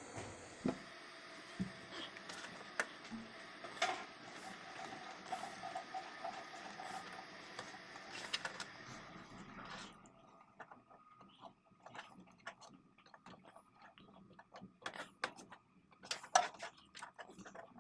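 Scattered small clicks and light knocks, the handling noise of cables and connectors being worked with, over a steady hiss that cuts off abruptly about ten seconds in. A louder run of clicks comes near the end.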